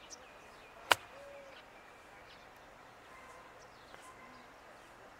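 A single sharp click about a second in: a 60-degree wedge striking a golf ball on a short chip shot. Faint bird chirps sound around it.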